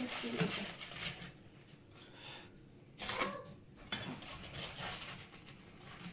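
Metal slotted spoon scraping and clinking against a stainless steel pan as boiled crabs are stirred and turned over in their cooking water, with louder clatters at the start and about three seconds in.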